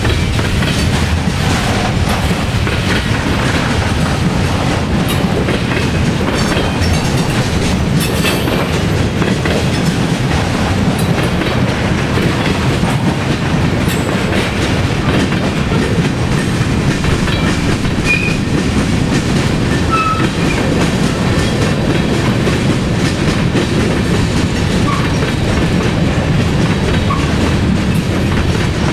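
Freight cars of a BNSF manifest train rolling past: a steady, loud rumble of steel wheels on rail, with clickety-clack as wheels cross rail joints and a few brief high squeaks past the middle.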